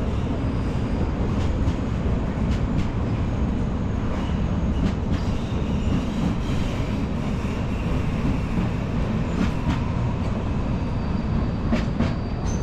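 Train crossing a steel railway bridge close by: a steady, heavy rumble with scattered wheel clicks and a faint high squeal at times.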